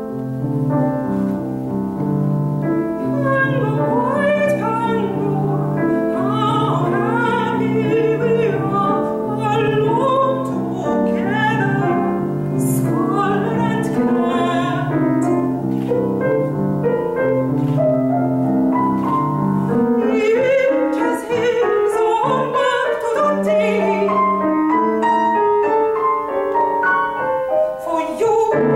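A soprano sings a classical art song with grand piano accompaniment. The piano plays a repeated low figure, and the voice enters about two to three seconds in.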